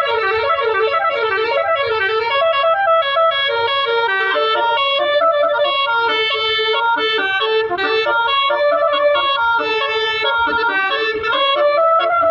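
Bus basuri horn, a multi-tone musical air horn, playing a continuous melody of shifting notes.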